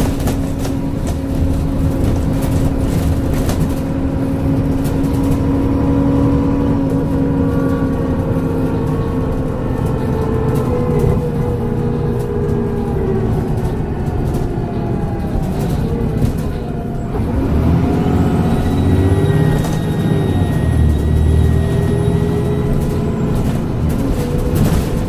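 Transbus Trident bus with a Voith gearbox under way: steady engine and driveline drone whose pitch slowly drops and climbs as it changes speed, with body rattles. From about 17 to 22 seconds in, a high turbo whistle rises and falls over it.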